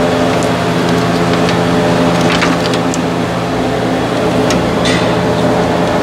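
A steady mechanical hum runs under scattered sharp clicks, snaps and scrapes of hard parts being handled, with the loudest strokes a little over two seconds in and again near the five-second mark.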